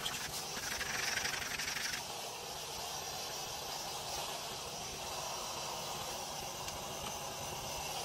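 Vacuum running, its hose nozzle sucking air across the cab floor as a steady rushing hiss, louder and brighter for about a second and a half near the start.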